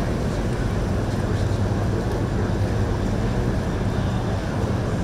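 Boat engine running at low speed: a steady low drone with the wash of water.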